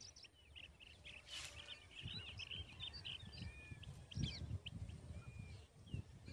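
Many small birds chirping and calling in quick, overlapping short notes, over a low, uneven rumble of wind on the microphone.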